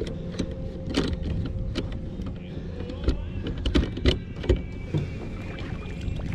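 Fishing rods and gear being handled and stacked, with scattered knocks and clicks, over a steady low motor hum.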